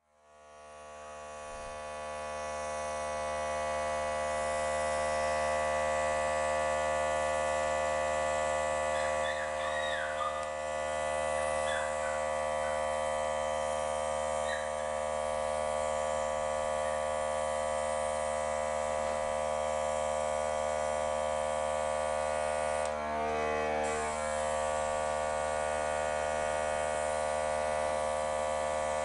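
Airbrush compressor running with a steady electric hum that fades in over the first few seconds.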